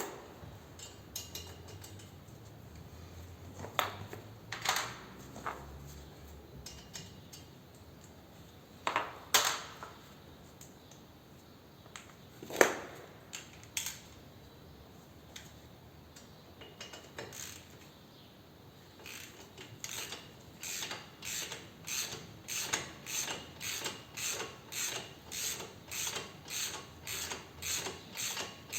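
A few scattered metallic tool knocks, then a hand ratchet wrench clicking in regular strokes, a bit over one a second, as a bolt is worked loose.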